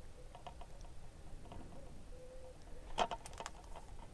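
Faint clicks and taps of a plastic DVD case being handled, with a short cluster of sharper clicks about three seconds in.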